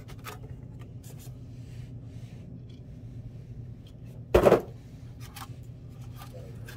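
Hands lifting a SCADAPack 334 controller out of its cardboard box: light rubbing, scraping and clicks of handling, with one loud thump about four and a half seconds in.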